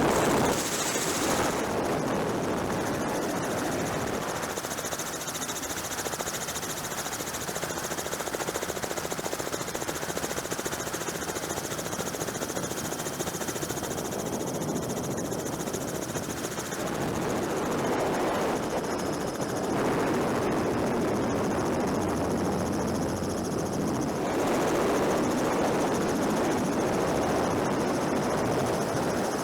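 Steady rushing din of a helicopter in flight, its tone shifting abruptly a few times.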